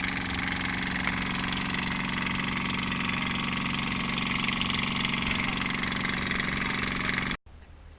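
Boat engine running steadily under a constant hiss, which cuts off abruptly near the end.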